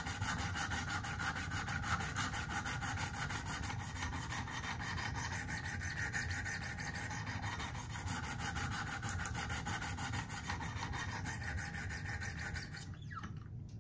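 Wicked Edge sharpening stone stroked rapidly back and forth along a steel pocket-knife edge, a steady scraping rasp that stops just before the end. The stone is grinding out chips along a recurve blade's damaged edge.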